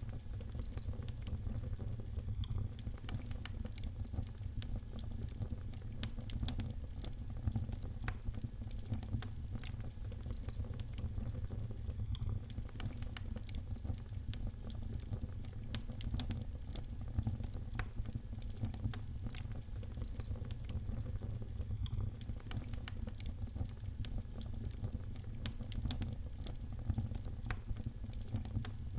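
Wood fire crackling: many small, irregular pops and snaps over a low, steady rumble.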